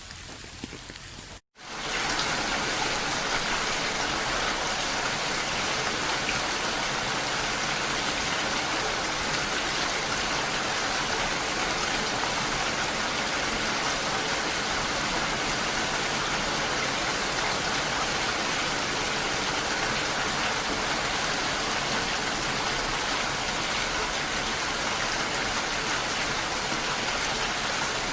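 Steady heavy rainfall. About a second and a half in it cuts out for an instant, then returns louder and carries on evenly.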